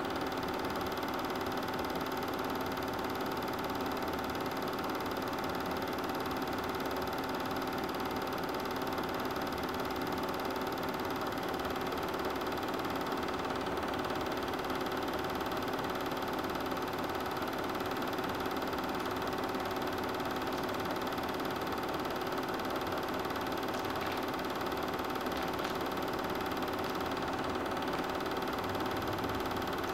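Super 8 film projector running steadily: a constant mechanical hum of motor and film transport, with several fixed tones.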